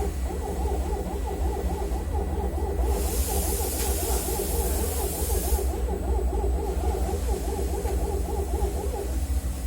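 A running vehicle engine: a steady deep rumble with a whine that wavers up and down several times a second, the abnormal noise the owner is recording. A hiss comes in for a few seconds about three seconds in.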